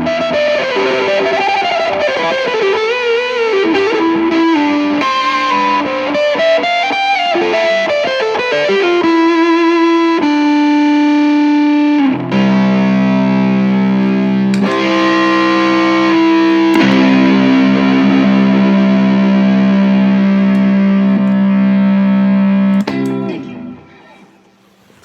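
Electric guitar played through an overdriven guitar amplifier. A single-note lead line with string bends and vibrato runs for about half the time. It then gives way to held, distorted chords that ring on and die away near the end.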